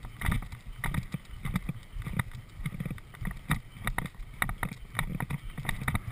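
Galloping horse's hooves drumming on grass turf in a steady stride rhythm of about one and a half strides a second.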